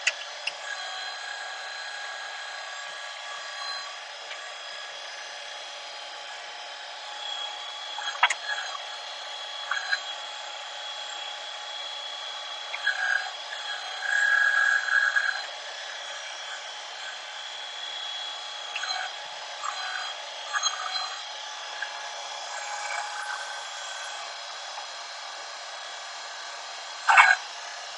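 A New Holland Workmaster 25S's three-cylinder diesel runs steadily at high throttle with a steady whine. Several brief louder surges come through, the longest about halfway through, and there is a short sharp burst near the end.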